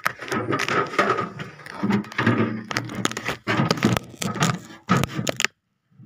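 Plastic parts and packing material inside a new fridge being handled: irregular clicking, scraping and crackling, cutting off abruptly near the end.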